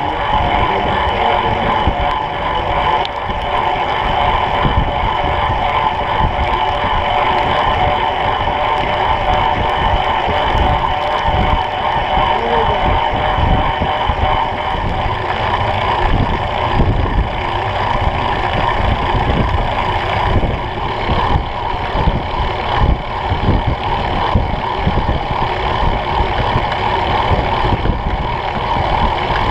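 Wind buffeting the microphone of a camera on a moving Brompton folding bike, over the bike's steady rolling hum of tyres and drivetrain on asphalt.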